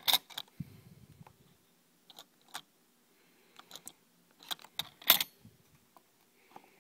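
Irregular small sharp clicks and taps of hands handling a CPU and motherboard socket parts, the loudest about five seconds in.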